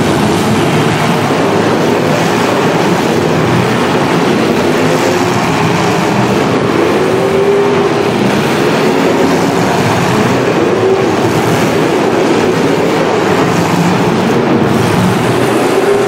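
Demolition derby car engines revving hard together in a loud, continuous din, their pitch rising and falling as the cars push against each other.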